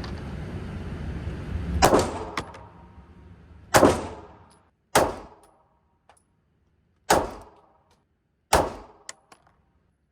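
Glock 43x 9mm pistol fired five times at an uneven pace, each shot a sharp crack with a short ringing tail. A few faint clicks follow some of the shots.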